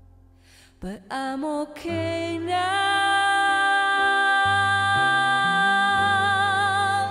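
Slow, soft background music. It comes in about a second in after a near-silent pause and then holds one long note over low bass notes.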